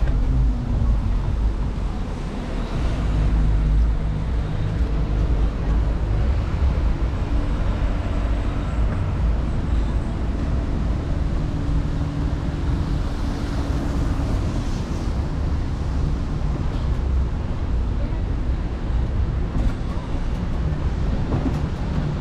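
City street traffic: vehicles passing with a steady low rumble, one engine humming for several seconds in the middle, with voices in the background.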